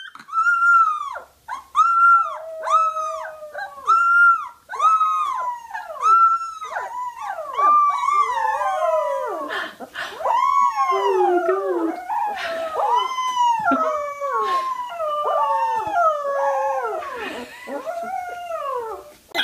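Young puppies howling: a quick string of short, high, arching yowls. From about eight seconds in, two voices overlap, one higher and one lower and falling.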